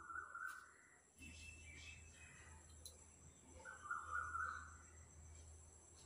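Two short, harsh bird calls: one right at the start and a louder one about four seconds in.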